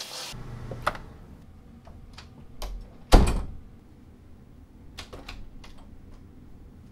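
Room door being opened: a heavy thud about three seconds in, then quick clicks of the handle and latch around five seconds as the door swings open. Music cuts off just at the start.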